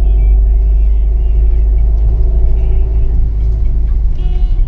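Steady low rumble of a car driving on the road, heard from inside the moving car. A brief high pitched tone sounds near the end.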